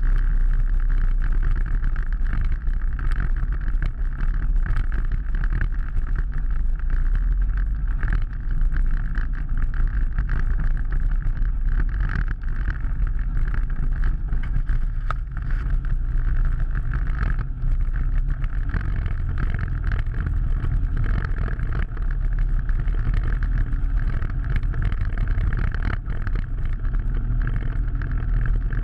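Off-road vehicle engine running steadily as it drives along a rough dirt trail, heard from a camera mounted on the vehicle.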